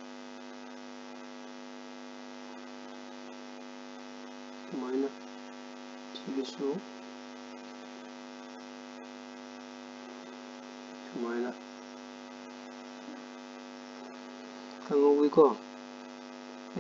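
Steady electrical hum with many even tones picked up by the recording microphone. It is broken four times by brief vocal sounds from the speaker, the loudest near the end.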